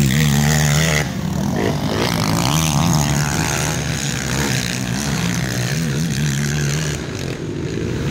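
Racing quad (ATV) engines revving up and down as the quads ride round a dirt track, the engine pitch rising and falling. It is loudest at the start and drops a little about a second in.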